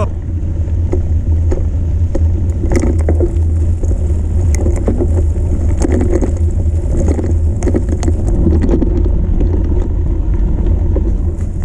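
Mountain bike riding a rough dirt track, picked up by a camera on the rider: a steady heavy low rumble of wind and tyres, with scattered clicks and rattles from the bike over the bumps.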